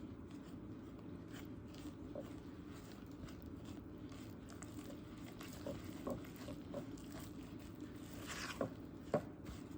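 Thick cornbread batter of cornmeal mix, buttermilk, eggs and oil being stirred by hand in a bowl: soft wet scraping with light taps against the bowl, busier near the end.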